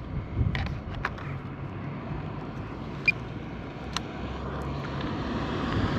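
A car driving out through the gate and approaching, its engine running, with tyre noise growing louder near the end. A few sharp clicks close by come from the drone controller being handled.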